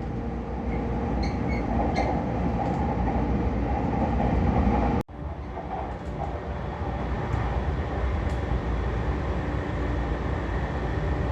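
Commuter train running, heard from inside the carriage: a steady rumble of wheels and running gear. The sound breaks off abruptly for a moment about five seconds in.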